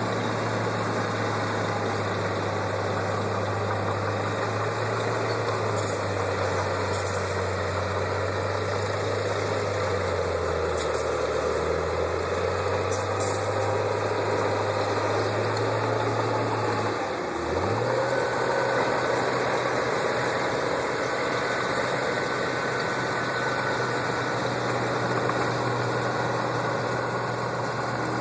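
Heavy diesel engine of a construction machine running steadily; its pitch sags about ten seconds in, then revs up quickly about 17 seconds in and holds at the higher speed. A few faint clinks come through early on.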